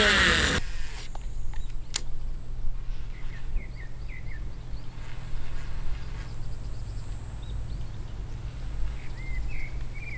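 Whine of a baitcasting reel's spool, falling in pitch and cut off suddenly as a cast ends, then short, faint bird chirps in a few clusters over a low steady rumble.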